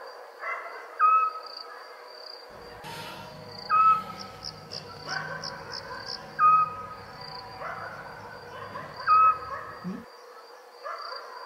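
Night ambience of crickets chirring steadily, with a short animal call repeated about every three seconds. A low steady hum comes in about two and a half seconds in and stops about ten seconds in.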